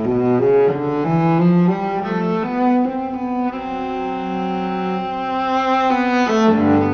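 Music on bowed string instruments, led by a low cello line playing a slow melody of held notes.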